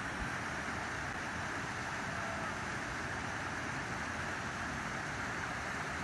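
Waterfall rushing over rock, a steady, unbroken hiss of falling water.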